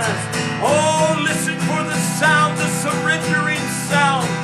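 Worship music led by a strummed acoustic guitar, playing steadily.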